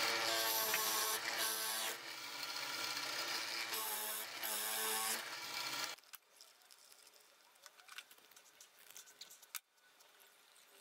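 Electric drill boring a round mortise into a wooden base: the motor starts suddenly, its pitch dips twice as the bit bites into the wood, and it stops abruptly about six seconds in. After that come faint small clicks and rubbing as glue is applied and the parts are handled.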